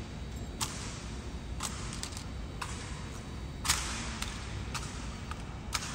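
Rifle drill: sharp slaps and clacks as the guards' hands strike and grip their rifles. About seven separate cracks come at uneven spacing, the loudest a little past the middle, each with a short echo off the stone walls. A steady low hum lies underneath.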